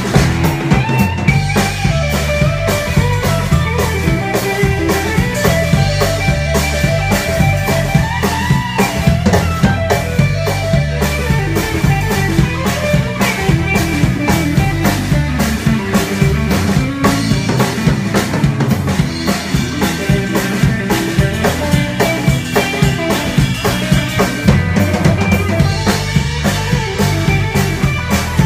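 Live band playing an instrumental passage: the drum kit keeps a steady beat with cymbals, a bass walks underneath, and an electric guitar plays a lead line.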